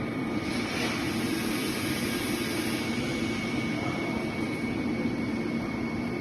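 Automatic laser pocket-welting sewing machine running: a steady mechanical hum with a thin, high whine.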